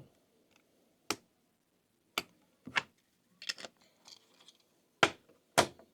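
Irregular sharp clicks and taps of small hard metal parts being handled, about eight over several seconds, with the two loudest near the end.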